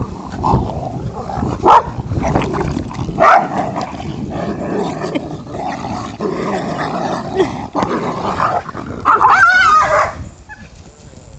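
Two dogs growling at each other in rough play over a ball toy, with a few sharp barks. About nine seconds in there is a wavering, drawn-out whine.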